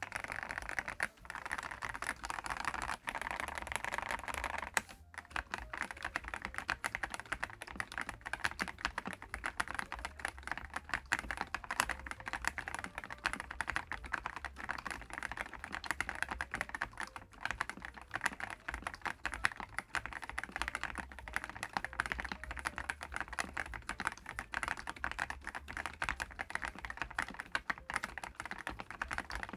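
Typing on a DAREU EK75PRO gasket-mounted mechanical keyboard with DREAM HIFI switches: a fast, continuous run of keystroke clacks, with a brief pause about five seconds in.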